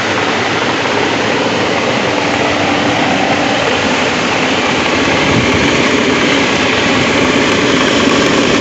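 Mercedes Smart's electric radiator/condenser cooling fan running with the air conditioning switched on, a loud steady noise over the idling engine. The owner judges the fan motor faulty and in need of replacement.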